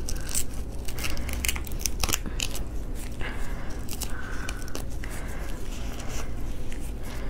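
Raw prawn being peeled by hands in thin plastic gloves: the shell crackles and clicks in quick, uneven snaps as it is pulled apart.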